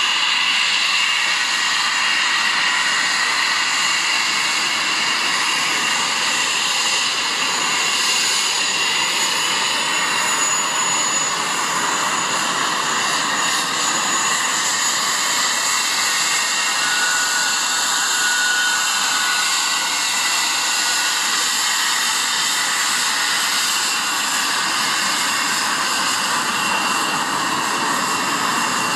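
English Electric Lightning's twin Rolls-Royce Avon turbojets running steadily: a loud, even rushing hiss with a high whine over it that does not rise or fall.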